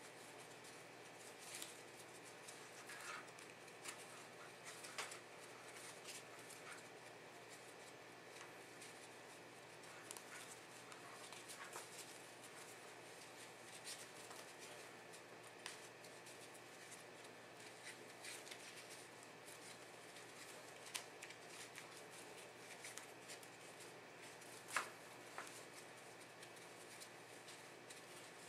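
Near silence with faint, scattered rustles and small clicks of rope being worked by hand as a monkey's fist knot is tightened strand by strand. There is one sharper click about 25 seconds in.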